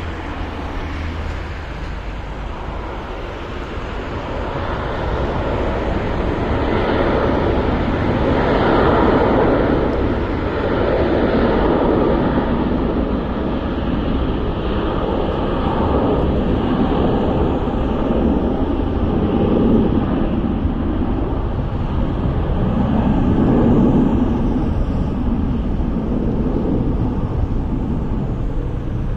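Jet airliner's engines at takeoff, a broad rushing rumble that builds over the first several seconds and then stays loud, swelling and easing in waves.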